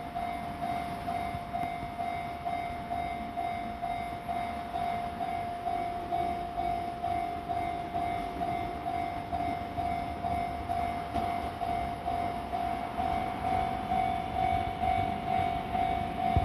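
Station platform train-approach warning beeping, a steady mid-pitched tone pulsing about twice a second, as a Sotetsu 10000 series electric train pulls into the platform; the train's running grows louder near the end.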